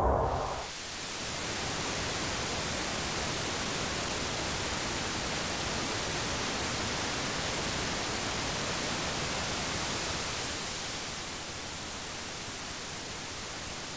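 Steady static hiss, like an untuned television, after music cuts away in the first second; it drops a little in level about ten and a half seconds in.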